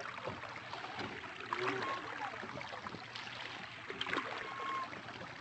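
Water gushing out of a wooden trough and splashing into a shallow pool, a steady churning splash with irregular louder slaps.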